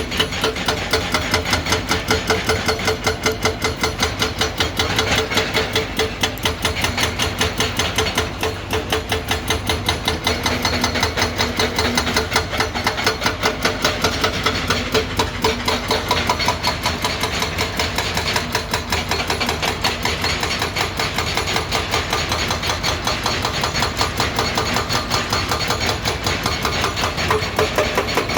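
Excavator-mounted hydraulic breaker hammering in a rapid, steady rhythm of several blows a second, with the excavator's engine running beneath it.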